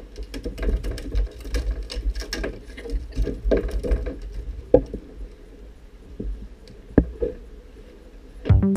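A small salmon on a fibreglass cockpit floor being grabbed and handled, with quick irregular slaps and taps that come thick at first, then thin out to a few sharp knocks. Music starts near the end.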